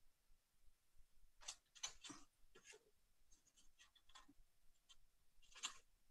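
Faint rustling and a few light ticks of a paper model airplane being handled, in short scattered bursts with quiet in between.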